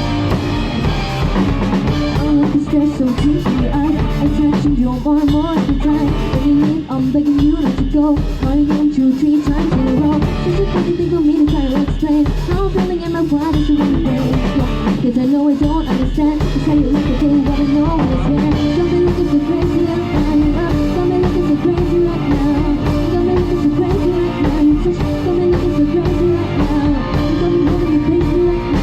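A live band playing a pop song cover: drum kit, electric guitar and bass under a lead singer's voice.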